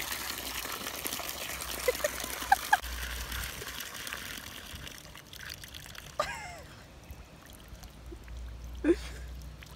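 Water running from the spout of an outdoor yard hydrant and splattering onto the ground beneath it. The flow is fainter from about halfway through.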